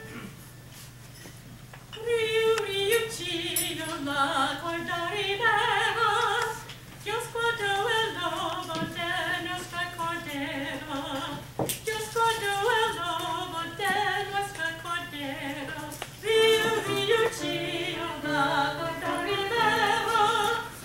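A woman singing a song in a madrigal-style performance, beginning about two seconds in after a moment of low room noise. A single sharp click cuts through about halfway.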